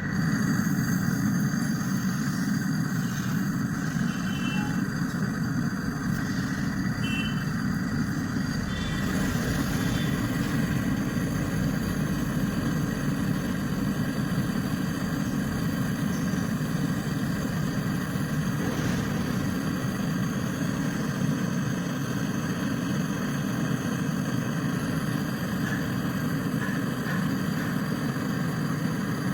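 Brazing torch flame burning with a steady roar while a pin valve is brazed onto a refrigerator line.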